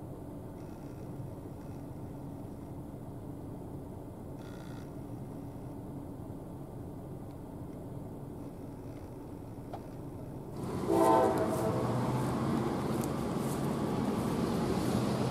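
Diesel freight locomotive rumbling low and steady as it creeps along with its cars. About two-thirds of the way through, a brief locomotive horn blast cuts in, followed by loud wind and rain noise on the microphone.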